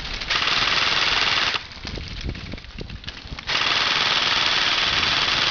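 Airsoft rifle firing two long full-auto bursts, a fast buzzing rattle of shots. The first lasts about a second, the second starts halfway through and carries on.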